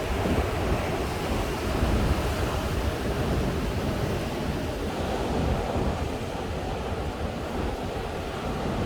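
Ocean surf breaking and washing onto a beach: a continuous wash of noise with a heavy low rumble, swelling slightly in the first couple of seconds and again past the middle.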